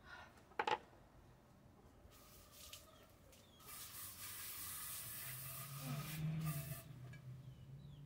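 Water spraying from a garden hose nozzle: it hisses on and off from about two seconds in, then runs steadily from about three and a half seconds until shortly before the end, with a low hum under it for the last few seconds. A single sharp knock comes about half a second in.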